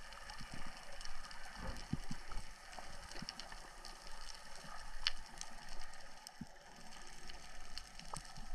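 Underwater ambience on a coral reef: a faint steady hiss of water with scattered, irregular sharp clicks and crackles.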